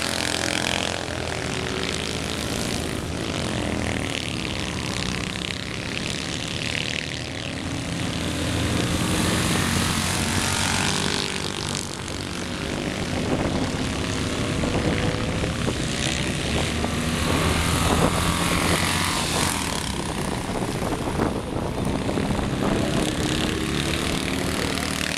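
Citroën 2CV race cars' air-cooled flat-twin engines buzzing round a dirt track, their pitch rising and falling as the cars accelerate, lift and change gear through the bend.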